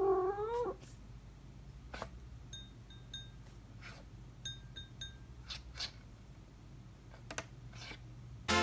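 A cat gives one short meow that rises and falls. Faint scattered taps follow, and twice there is a quick run of three short high chiming tones.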